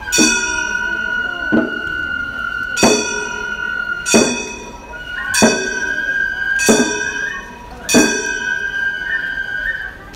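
Gion-bayashi festival music: a bamboo transverse flute holds a high note while small bronze hand gongs (kane) are struck about every 1.3 seconds, seven times, each strike ringing on.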